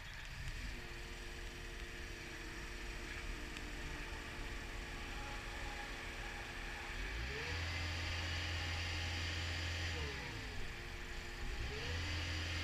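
Caterpillar 236D skid steer loader's diesel engine running at a steady low speed, then revved up about seven seconds in, dropping back briefly around ten seconds and revving up again near the end.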